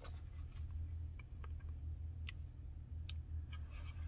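Several light, sharp clicks and ticks, scattered irregularly, as metal tweezers and the plastic frame and circuit board of a smart clock are handled. A steady low hum runs underneath.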